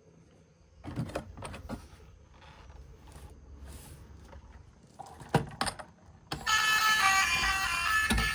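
Scattered light clicks and knocks, with a sharper knock a little past five seconds. About six seconds in, louder music starts suddenly and keeps going.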